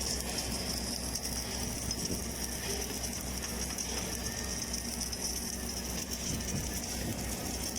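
Lincoln LT-7 submerged arc welding tractor running along a seam: a steady mechanical whir over a constant low hum.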